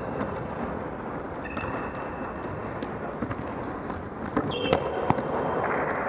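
Soccer ball being kicked and bouncing on a gym's hardwood floor: a few sharp, echoing thuds between about four and five seconds in, with short sneaker squeaks and steady reverberant noise from the large hall.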